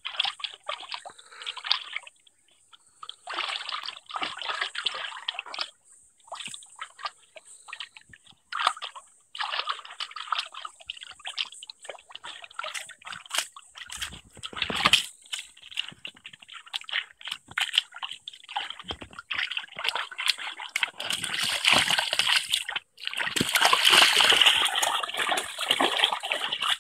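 Wire fox terrier splashing about in the water of a shallow plastic paddling pool, in bouts of sloshing and splashing with short pauses. The splashing is heaviest near the end.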